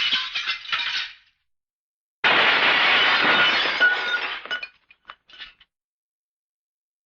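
Two cartoon glass-shattering sound effects. The first crash is already sounding and dies away into tinkling shards about a second in. After a short gap a second crash of breaking glass sounds, and its pieces tinkle and settle until about halfway through.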